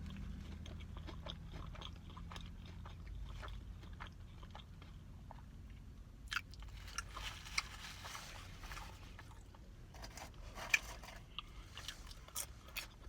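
Close-up chewing and biting of a crispy fried chicken sandwich, with scattered sharp crunches of the breading, over a faint low hum.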